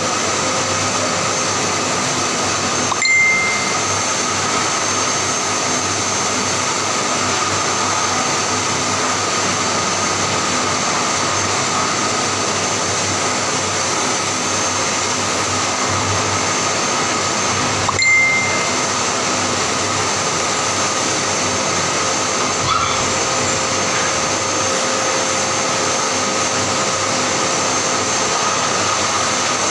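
Hose-fed pet grooming blow dryer running steadily, a loud even rush of air with a high whine, as its nozzle is worked through a long-haired cat's fur. Two brief clicks stand out, about three seconds in and again about eighteen seconds in.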